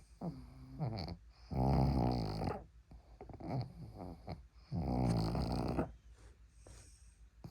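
A pug snoring in its sleep: two loud, buzzy snores about three seconds apart, with softer snuffling breaths between them. Noisy snoring like this is typical of the short-nosed breed.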